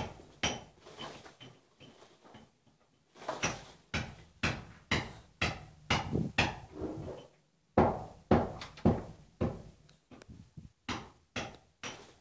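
Sharp taps, roughly two a second, in runs broken by short pauses.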